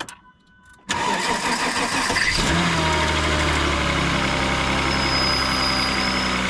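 VW Eurovan VR6 engine cranked by its starter about a second in, catching after about a second and a half and settling into a steady idle. Over the idle there is a faint high squeak from the A/C compressor clutch bearing, which the owner takes to be worn.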